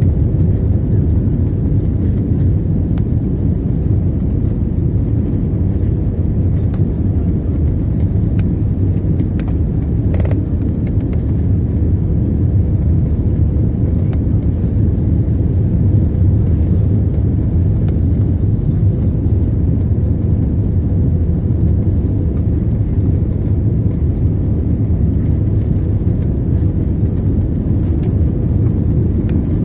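Airliner cabin noise in flight: a steady, loud low rumble of engines and airflow with a faint steady hum, and one brief click about ten seconds in.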